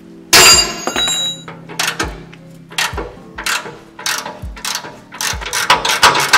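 Ratchet wrench working a stiff, rusted bumper-to-chassis bolt: a loud ringing metal clang about a third of a second in, then repeated clicks and clanks of the tool on the steel. A music track with a steady beat plays underneath.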